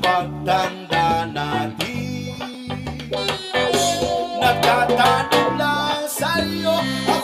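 Background music: a song led by plucked guitar over a stepping bass line.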